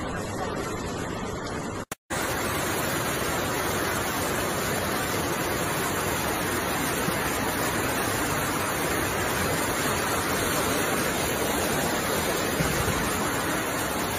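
Floodwater rushing in a torrent, a steady even noise of churning water. It cuts out for a moment about two seconds in, then carries on as before.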